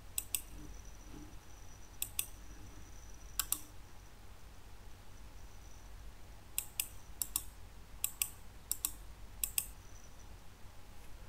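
Computer mouse buttons clicking: about eight sharp clicks, each a quick press-and-release pair, spread out with a pause of a couple of seconds in the middle.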